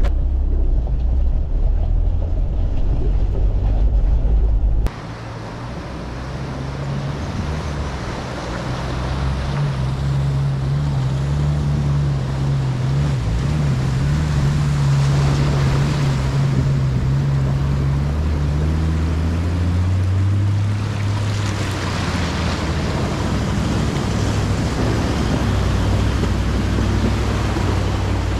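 A four-wheel drive's engine pulling steadily through a river crossing, with water splashing and washing around it; the rush of water swells about halfway and again toward the end. It is preceded by a deep in-cab drone for the first five seconds, which stops abruptly.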